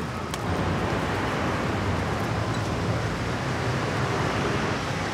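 Busy city street ambience: a steady rush of traffic noise, a little louder from about half a second in.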